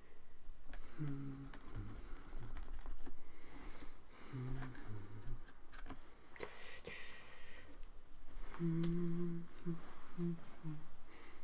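A man humming a tune in short held notes, with light clicks and taps from brush work at the ink jar and palette. A brief rustling noise comes about six and a half seconds in.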